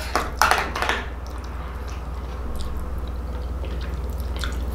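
Metal spoon scraping and clinking in a glass bowl of fonio porridge in the first second, then faint chewing and mouth sounds as he eats. A steady low hum runs underneath.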